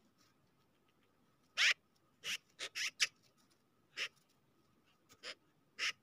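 Magpies giving short, harsh chak notes, about eight of them at irregular intervals from about a second and a half in, some in quick runs.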